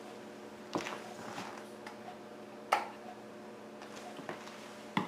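A few separate clicks and knocks of walker parts being handled while a ski-shaped glide is fitted onto the walker's back leg, the loudest about halfway through, over a faint steady hum.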